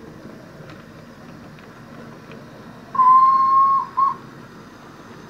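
Steam locomotive whistle played by a Train-Tech SFX sound capsule in a model train: one long blast about three seconds in, then a short one, at a single steady pitch. It sounds over the low running noise of the model train on the track.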